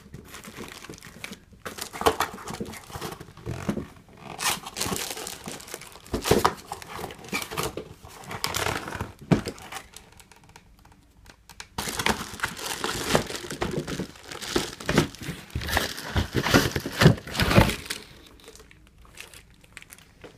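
Clear plastic wrapping crinkling and cardboard packaging rustling as a handheld vacuum is worked out of its box, in irregular bursts with a short lull about halfway through.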